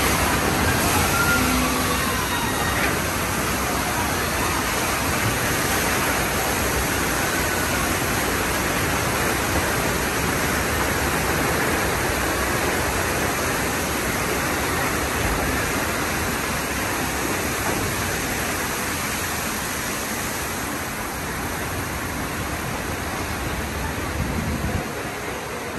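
Special-effects noise of the Earthquake attraction's collapsing subway-station set: a loud, steady rushing of flood water and rumble effects that eases slightly near the end.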